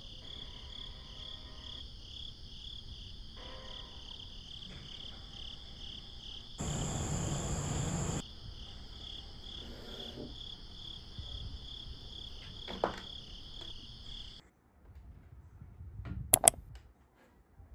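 Crickets chirping in a steady, evenly pulsing chorus, with a brief louder rush of noise about seven seconds in. The chirping stops near the end, and a couple of sharp clicks follow.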